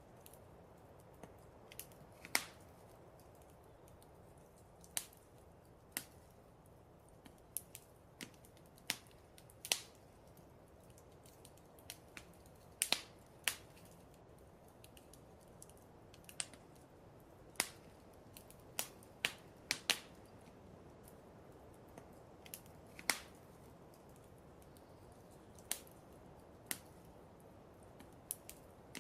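Fireplace crackling: irregular sharp pops and snaps, roughly one a second and unevenly spaced, over a low steady hiss of the fire.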